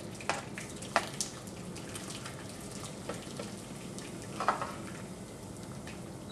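Thick cheese sauce with mushrooms pouring and plopping out of a stainless steel pot onto pasta in a casserole, with a utensil scraping and knocking against the pot a few times: sharp clicks in the first second or so and a louder scrape about four and a half seconds in, over a steady low hiss.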